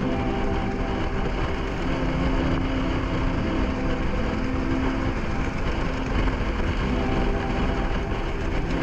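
KTM Duke 390's single-cylinder engine running steadily at cruising speed, with wind and road noise around it.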